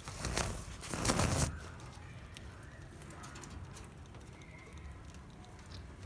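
Budgerigars chirping and warbling softly, with two loud, brief rushes of noise in the first second and a half.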